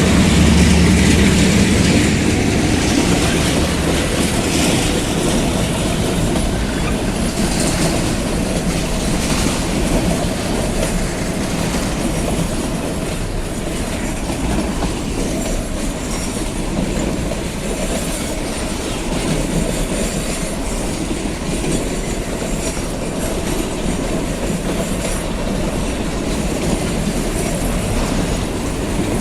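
Empty freight train rolling past. The locomotive's diesel engine is loudest in the first couple of seconds, then the long string of empty wagons goes by with a steady rumble and clickety-clack over the rails, with some wheel squeal.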